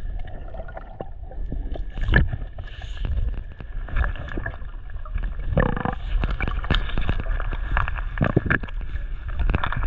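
Muffled underwater sound through a camera in a waterproof housing: a steady low rumble of moving water with many scattered clicks and crackles.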